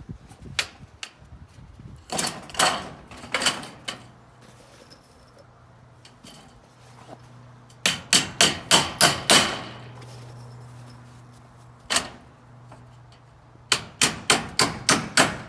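Claw hammer striking black steel trim: a few scattered blows, then a rapid run of about seven, a single blow, and another rapid run of about eight near the end.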